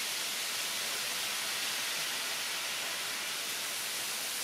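Steady sizzling hiss of ground pork and vegetable lumpia filling frying in a hot pan while soy sauce is poured in.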